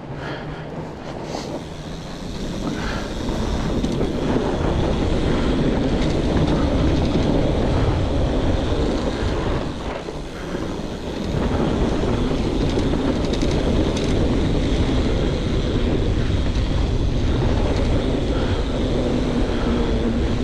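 Wind rushing over the microphone and the rumble of fat bike tyres on the trail at speed. It gets louder about four seconds in and dips briefly around halfway.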